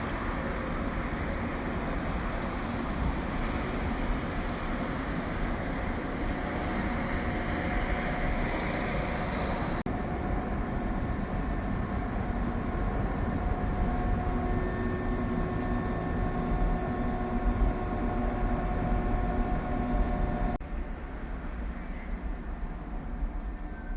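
Shibayama Railway 3600-series electric train running, a steady rumble with a few steady whining tones. The sound changes abruptly twice, about ten seconds in and near the end, where the recording is cut.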